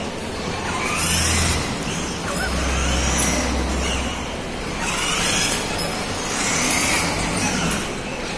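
Electric motors of a battery-powered ride-on toy car whining in repeated spurts, rising and falling in pitch as the car speeds up and slows down, over a low hum.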